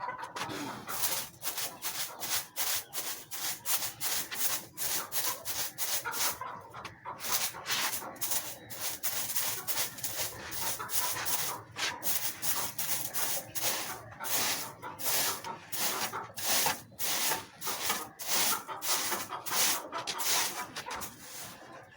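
Repeated rough scraping strokes, about two a second, each a short hiss of rubbing against a surface.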